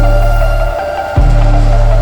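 Electronic background music with heavy, wobbling bass notes that change about every second and a half.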